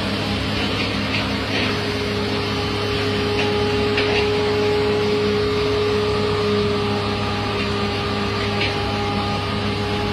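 Asphalt paver and the dump truck feeding it running at a steady, even drone, with a constant whine over the engine hum and a few faint clicks.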